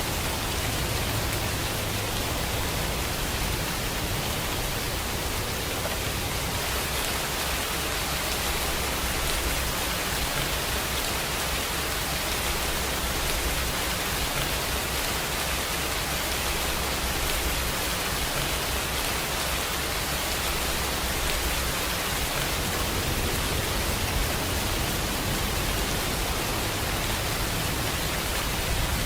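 Steady rain falling, a constant dense hiss without breaks or single distinct drops.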